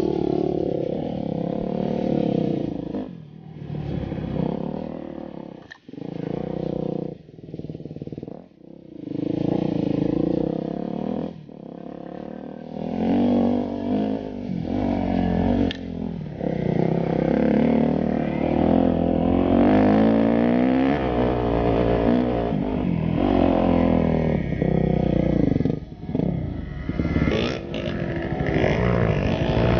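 Yamaha enduro dirt bike engine being ridden, revving up and down. The throttle is shut off several times in the first dozen seconds, then it runs louder and steadier under power.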